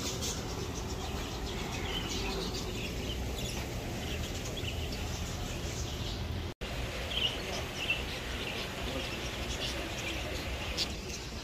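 Birds chirping, many short scattered calls, over a steady low outdoor rumble. The sound cuts out for a moment about six and a half seconds in.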